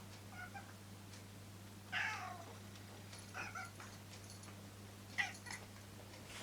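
Domestic cat meowing several times in short calls, the loudest about two seconds in, falling in pitch.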